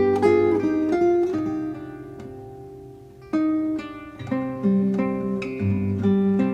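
Acoustic guitar music: plucked notes and chords ring out and fade away over a couple of seconds, then a new chord is struck about three seconds in and the playing continues.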